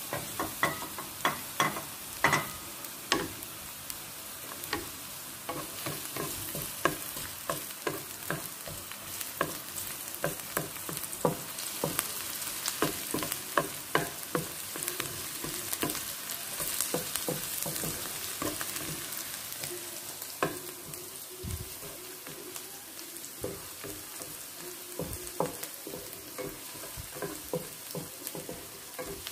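Chopped onion and sliced garlic sizzling in hot oil in a frying pan, with a wooden spatula scraping and tapping against the pan again and again as it stirs them.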